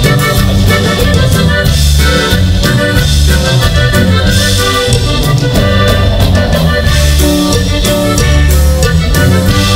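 Norteño band playing live: accordion carrying the melody over electric bass, guitar and drum kit, with a steady beat.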